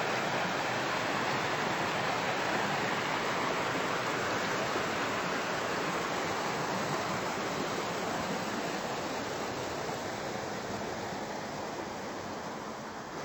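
River water rushing steadily, a dense even hiss of flowing water that grows a little quieter over the last few seconds.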